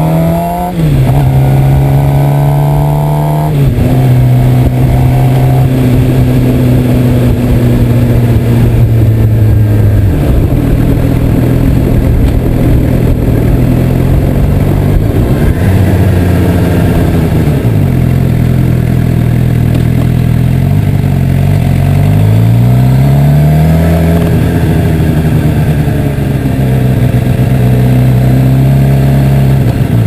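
Sport motorcycle engine, loud through a GoPro's built-in microphone: it revs up with two upshifts in the first few seconds, cruises at a steady pitch, drops off the throttle around ten seconds in, then revs up again near the end, over wind and road noise.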